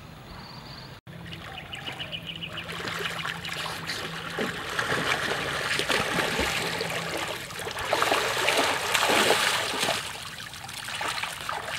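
Water splashing and sloshing as people swim and then wade through shallow river water. Louder in the second half, as they stand and step out through the shallows.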